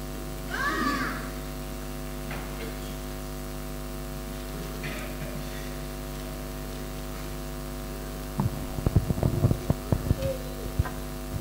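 Steady electrical mains hum from the hall's sound system. From about eight seconds in comes a couple of seconds of irregular knocks and bumps, louder than the hum.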